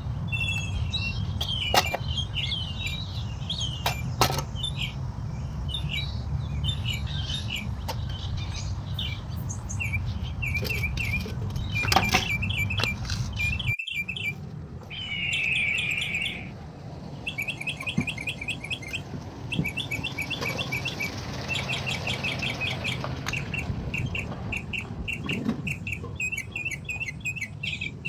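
Small songbirds chirping and trilling over and over, with quick repeated phrases in the second half. A few sharp knocks stand out in the first half.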